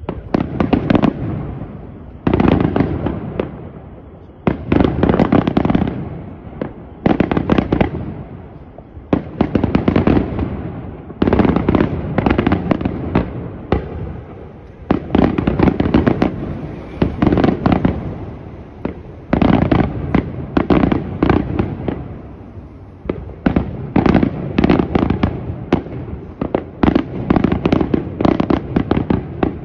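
Aerial fireworks shells bursting in volleys of sharp bangs and crackling reports. A new cluster starts every second or two, and each dies away quickly; the volleys come thicker near the end.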